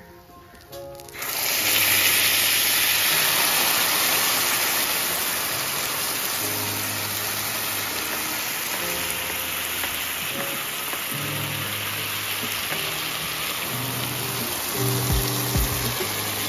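Sauce hitting a hot cast-iron sizzler plate under a whole fried fish: a loud sizzle that starts suddenly about a second in, then keeps hissing steadily as the sauce bubbles, easing slightly later on.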